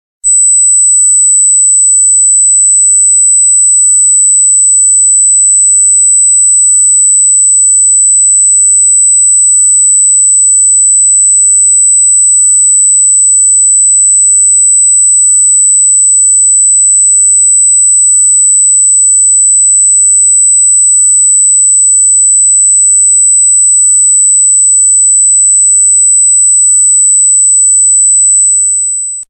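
A single loud, steady, very high-pitched pure electronic tone, like a sine-wave test tone. It starts abruptly just after a brief silence and fades out in the last second.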